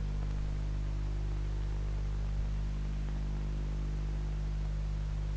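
Steady low electrical hum with a layer of hiss, the background noise of an old film soundtrack between lines of narration.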